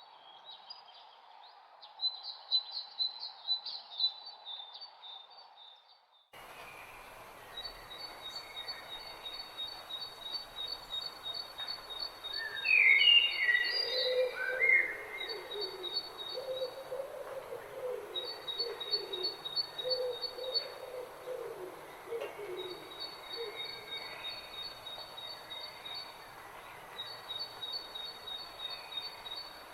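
Several wild birds singing and calling: a rapid high trill repeated in bouts of a few seconds, louder chirping phrases in the middle, and lower-pitched calls under them. The background changes abruptly about six seconds in, as if a second recording begins.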